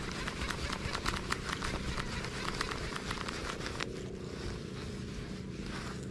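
Baitcasting reel being cranked on a retrieve: a rapid fine ticking that stops with a click about four seconds in, over a steady low rumble.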